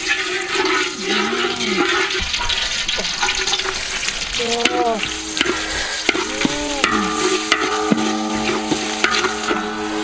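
Sliced chillies, lemongrass and shallots sizzling in hot oil in a metal wok, stirred with a wooden spatula that clacks and scrapes against the pan. Squealing, ringing tones join in over the second half.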